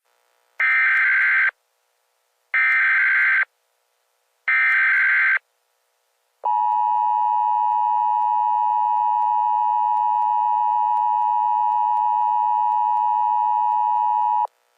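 Emergency Alert System tones: three short bursts of SAME digital header data about two seconds apart, then the steady two-tone EAS attention signal held for about eight seconds and cut off abruptly, opening a red flag warning.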